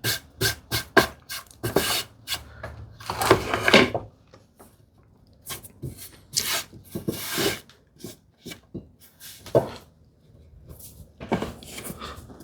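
Wooden tambour slats being handled and fitted into a grooved strip: a string of light wooden clicks and knocks, with a few stretches of rubbing and scraping between them.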